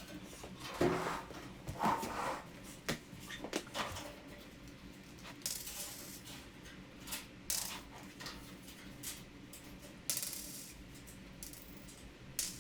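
Irregular clicks, clinks and rustles of small hard parts being handled, with a few louder knocks.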